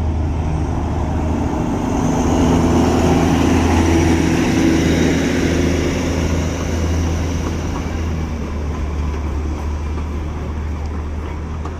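Darjeeling Himalayan Railway toy train running past, a steady engine drone with a low hum that swells to its loudest a few seconds in and then eases off.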